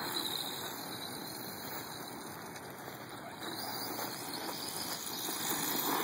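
Radio-controlled truck driving over dirt and dry grass: a steady noise from its motor and tyres, with no clear pitch.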